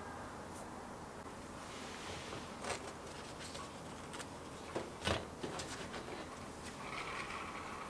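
Salt bread rolls handled on a wire cooling rack: faint crackles of the crust and a few light taps, the loudest about five seconds in, with a soft rustle near the end.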